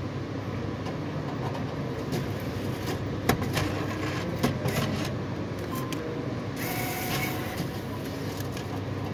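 Cash machine working through a withdrawal: a couple of sharp clicks, then a brief mechanical whirr a little over six and a half seconds in, over a steady low hum.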